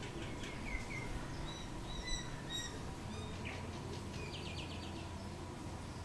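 Common myna calling: a few downward-sliding notes, then short high whistles, then a quick run of chattering notes about four and a half seconds in, over steady low background noise.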